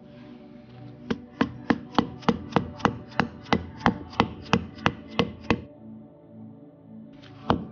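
A hammer tapping a new ball bearing down into a mower wheel hub: a quick run of about fifteen sharp metal strikes, roughly three a second, then a pause and another strike near the end.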